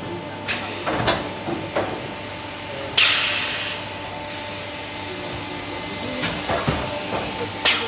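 Automatic foundry moulding line running: a steady machine hum, with metal clicks and knocks from its moving parts around a second in and again near the end. About three seconds in comes a sudden sharp hiss of compressed air venting, which fades over about a second.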